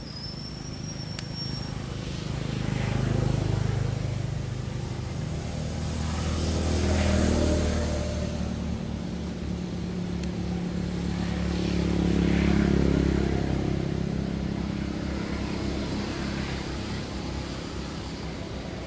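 Motor vehicles passing: a low engine hum that swells and fades about three times.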